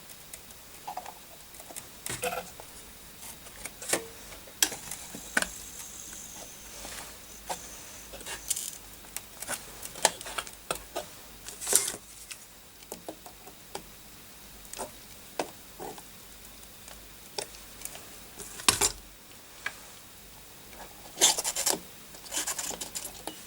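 Irregular clicks, taps and short scrapes of hand tools and a motherboard being worked over a solder pot while trying to free a soldered connector, with a louder cluster of scraping near the end.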